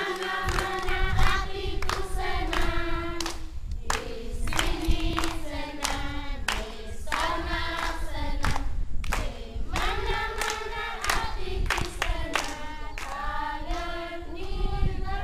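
A group of children singing a song together in unison, led by a woman, with sharp beats kept in time throughout.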